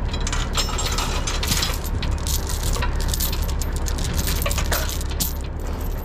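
Steel tow chain clinking and rattling as it is worked around a truck's axle and frame. Many irregular sharp clicks over a steady low rumble.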